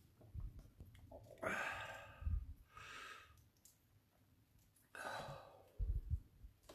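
A man breathing hard and sighing against the burn of a Carolina Reaper pepper. There is a long noisy out-breath about a second and a half in, a shorter breath a second later, and another out-breath about five seconds in. Two low thumps come just after the first and the last breath.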